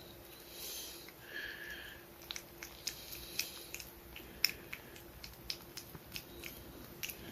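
A pet chewing, heard as irregular small crunchy clicks, with a brief louder scuffling burst about a second in.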